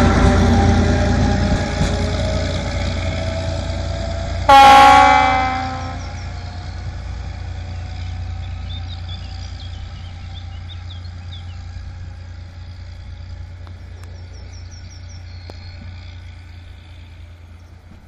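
Historic ČSD diesel railcar train pulling away, its running sound fading steadily as it recedes. About four and a half seconds in comes one short horn blast of about a second, the loudest sound, and faint bird chirps follow as the train dies away.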